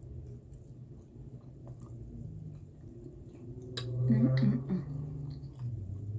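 Close-miked chewing and mouth sounds of someone eating soft baked cheesy pasta, with small wet clicks. A short murmur of voice about four seconds in is the loudest moment.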